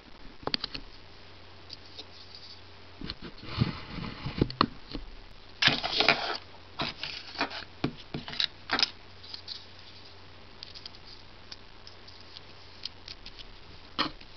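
Fingers handling a small plastic microSD card and adapter: light clicks, taps and scraping rustles, busiest in the first half, then sparse, with one sharp click near the end.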